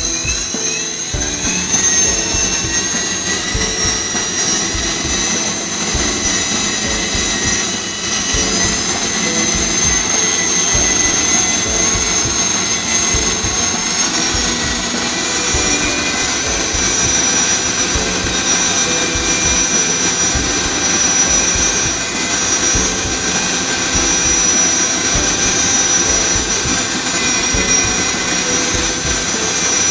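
High-speed CNC drill spindle running with a steady high whine as it drills a row of small facet holes into a plastic bangle, with a low, uneven pulsing underneath from the repeated drilling strokes.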